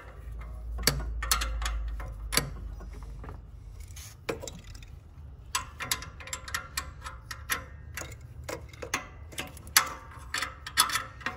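A 12 mm wrench turning nuts on studs: irregular metallic clicking and ticking, sparse at first and then in quick runs through the second half. A knock right at the start and a low rumble over the first few seconds.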